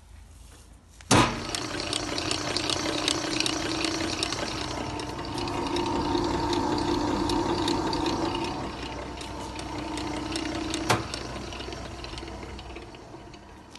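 Hobart 4732 grinder's 2.2 kW three-phase motor switched on with a sharp click about a second in, then running empty with a steady hum and a whine. Near the end a click marks it being switched off, and it winds down and fades away.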